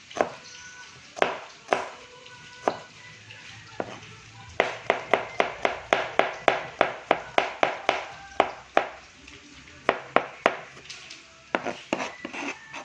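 Knife chopping garlic cloves on a cutting board. A few single strokes come first, then a quick even run of about four strokes a second through the middle, then a few more singles, with faint music in the background.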